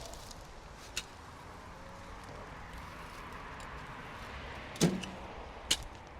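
A digging tool working soil: three sharp knocks, about a second in, a louder one with a low thud near the five-second mark, and another shortly after, over a steady outdoor background hiss.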